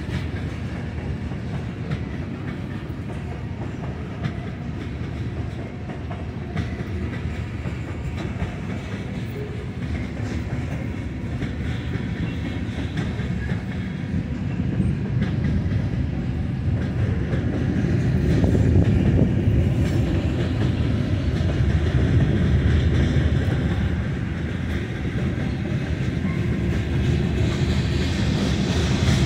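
Freight cars of a long manifest train, mostly covered hoppers, rolling past on the mainline: a steady rumble of steel wheels on rail with faint clicks over the rail joints. It grows louder a little past the middle, then eases slightly.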